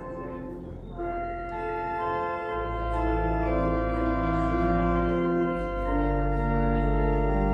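Organ playing sustained chords, coming in about a second in, with deep pedal bass notes joining a little later.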